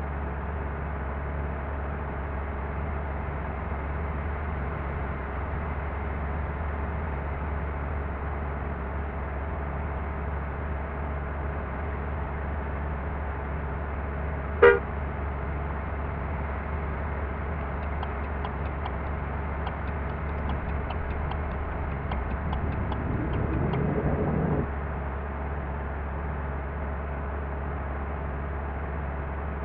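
Steady drone of a bus engine and road noise, with one short horn toot about halfway through. Later a rising engine sound builds for about two seconds, then stops abruptly.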